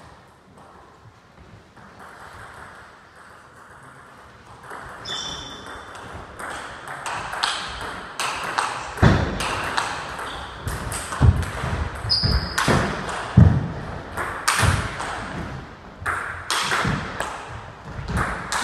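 Table tennis rally: the ball clicking back and forth off the rackets and the Donic table, starting a few seconds in and running thick and fast through the middle, with several heavier thuds among the clicks.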